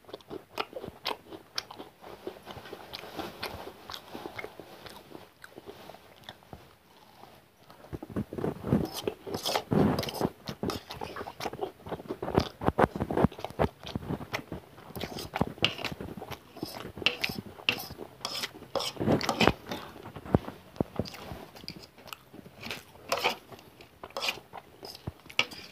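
Close-miked eating sounds: a person chewing and biting egg noodles and fried chicken pakora, with many short sharp mouth clicks. It is softer for about the first eight seconds, then louder and busier.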